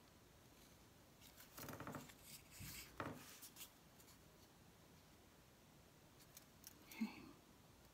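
Faint scratching of a pencil drawing lightly on a painted dried bottle gourd, with some paper handling, for a couple of seconds from about a second in. One brief, sharper sound comes near the end.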